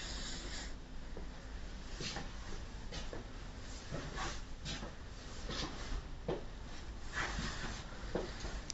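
Low steady room hum with soft, irregular rustles and taps about once a second, the sort of handling and movement noise made by someone walking through a small room with a phone.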